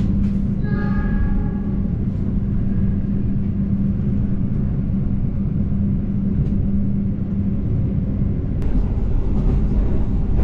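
Running noise of the Argo Parahyangan intercity train heard from inside a passenger coach: a steady rumble of wheels on rails with a constant low hum. A brief high ringing tone sounds about a second in.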